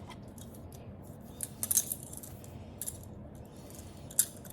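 Metal handcuffs clinking as they are handled and put on a wrist: a few sharp metallic clicks and jingles, about a second and a half in and again near the end.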